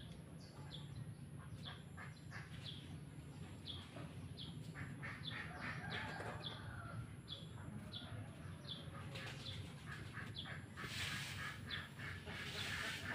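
A long run of short, high, falling bird chirps, roughly three every two seconds, with bursts of rustling noise growing louder near the end.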